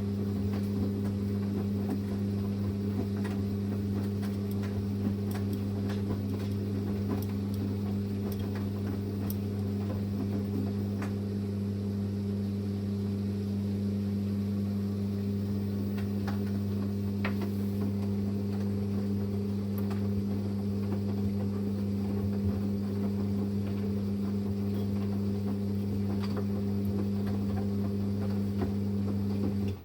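Samsung Series 5 9 kg Eco Bubble washing machine running with a steady electrical hum, with faint scattered ticks, until the hum cuts off suddenly at the very end.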